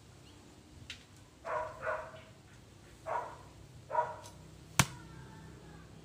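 An arrow strikes the foam block target with one sharp smack just before five seconds in, the loudest sound here. Before it, an animal calls four times in short, bark-like calls.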